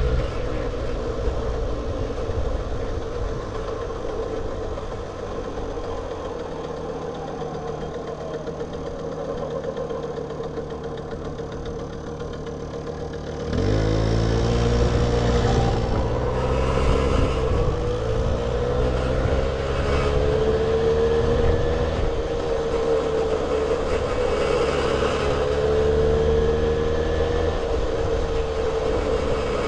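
The 1978 Puch Sport MK II moped's 50cc two-stroke engine, heard from the rider's seat. It runs softer at first; about halfway through it suddenly gets louder, its note climbing as it pulls away, then rising and falling with the throttle.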